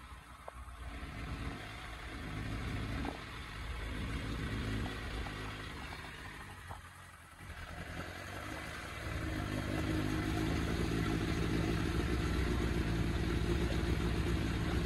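Suzuki Bandit 600's inline-four engine running with its carburettors out of balance. It falls away twice, about a second in and again around seven seconds, then settles into steady running for the last five or so seconds.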